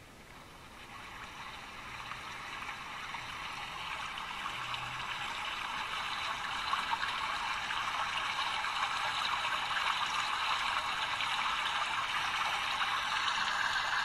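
Recorded running-water sound, like a flowing stream, played by a nature-sounds app on a phone; it fades in over the first few seconds and then runs steadily.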